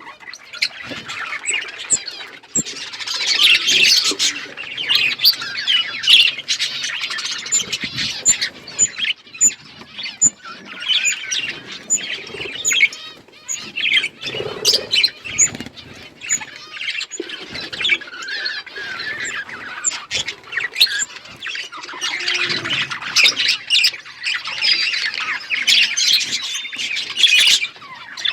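A flock of budgerigars chattering and chirping continuously, many birds calling over one another with frequent sharp squawks.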